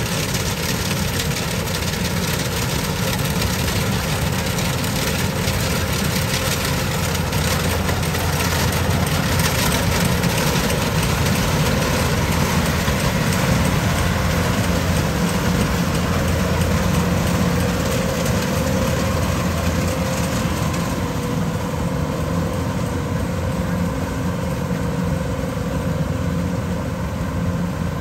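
Kubota DC-105X combine harvester running under load as it cuts and threshes lodged rice: a steady diesel engine and machinery drone. A higher hiss over it eases off in the last third.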